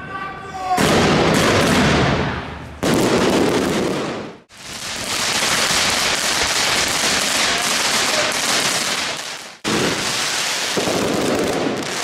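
Fireworks going off in a dense, continuous crackle and hiss of fountains and crackling stars. The sound comes as several short clips joined by abrupt cuts, with a short falling whistle at the very start.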